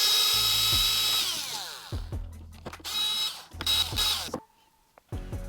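Cordless drill/driver motor whining in short trigger pulls, its pitch sliding down as it coasts to a stop after each one: one long run, then two short ones about 3 and 4 seconds in. This is the kind of pulse used to back out the screws of a battery pack case. Background music with a steady beat plays underneath.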